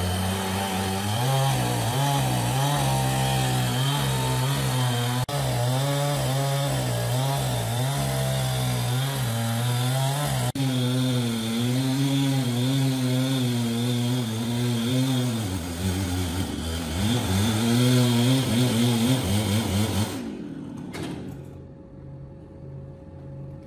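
Large chainsaw with a Stihl bar running under load as it cuts through a thick hardwood log, its engine note wavering as the chain bites. It stops sharply near the end.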